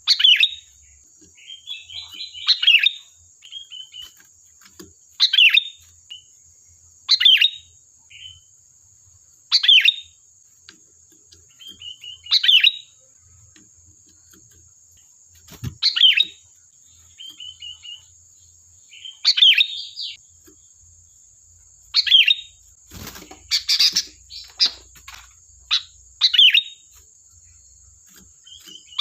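Sooty-headed bulbul (kutilang) singing: short loud whistled phrases, each dropping steeply in pitch, about every two to three seconds, with softer chattering notes in between. A busier burst of calls comes about three-quarters of the way through.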